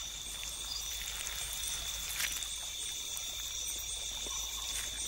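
Steady night insect chorus, crickets trilling in a constant high band, over soft wet trickling, with a faint click about two seconds in.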